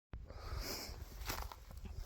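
Footsteps scuffing on rough ground, a couple of short scrapes, over a steady low rumble on the microphone.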